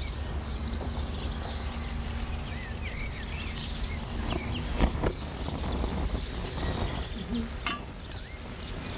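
Open-air ambience: a steady low rumble with birds chirping briefly now and then, and two sharp clicks, one about halfway through and one near the end.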